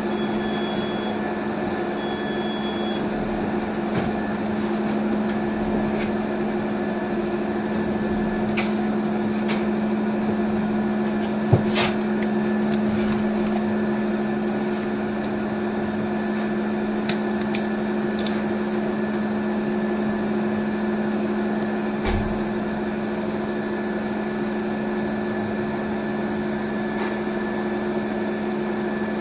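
Steady electrical hum of a moving trolleybus, heard from inside: a constant low drone with a fainter high whine over road noise. Two short high beeps come near the start, and a few light clicks and knocks follow later.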